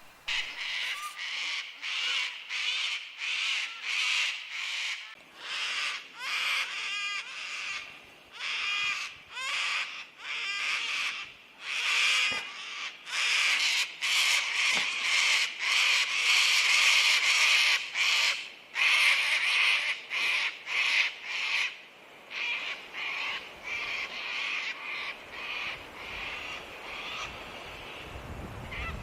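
Sulphur-crested cockatoos screeching in full flight: a long run of harsh, raucous calls, one after another, growing weaker over the last few seconds.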